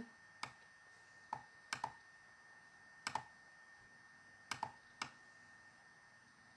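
Faint computer mouse clicks, about nine of them at irregular intervals, several in quick pairs.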